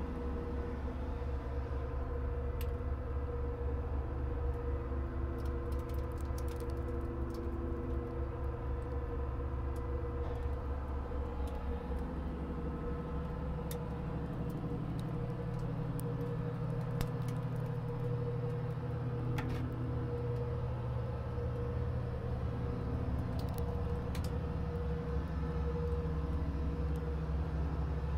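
Steady drone of running machinery, a low rumble under a constant hum, whose low note shifts about twelve seconds in. Faint scattered clicks and taps sit over it.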